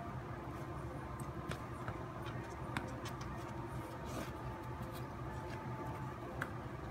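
Quiet room tone: a steady low hum with a few faint clicks.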